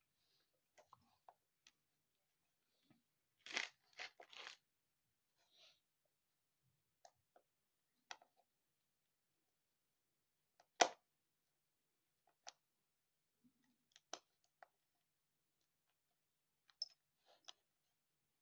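Small plastic clicks and crinkles of Lego pieces and their packaging being handled, quiet and scattered, with a short run of crunching about three and a half seconds in and one sharper click near eleven seconds.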